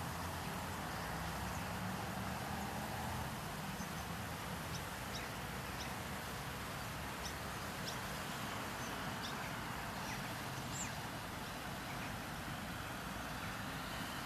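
Steady background hum of distant road traffic, with faint, short high bird chirps scattered through it.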